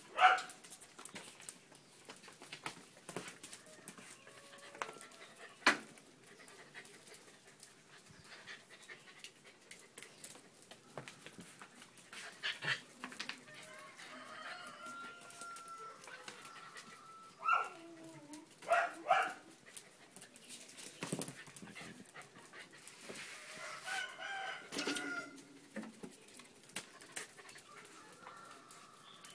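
Blue merle Border Collie puppy making a few short calls, three of them close together a little past the middle.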